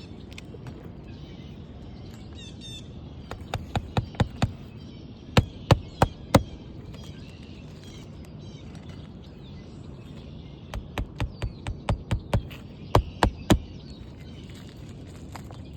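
Hammer driving roofing nails into an asphalt shingle: two runs of strikes, each a few lighter taps followed by several hard blows. Birds chirp faintly in the background.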